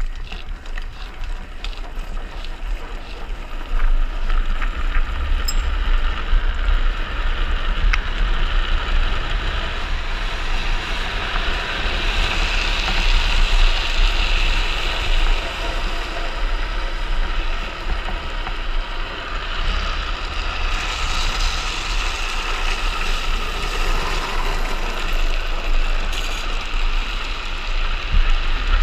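Wind buffeting the microphone of a rider going fast on a speed trike, over the steady hiss of the trike's wheels rolling on asphalt. The hiss swells a little before halfway and again about three quarters of the way through, as the trike goes through bends.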